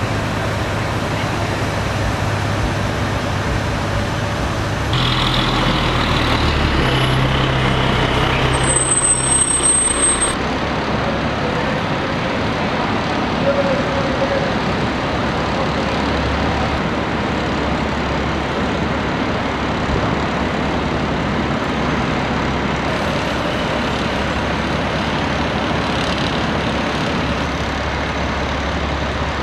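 Street traffic noise and idling engines of the fire trucks and other emergency vehicles at the scene, with a steady low engine hum throughout.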